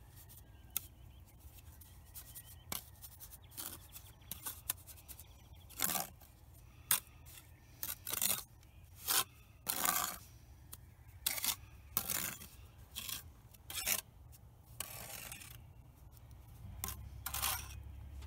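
Steel mason's trowel scraping and spreading wet mortar against red bricks, in short, irregular strokes.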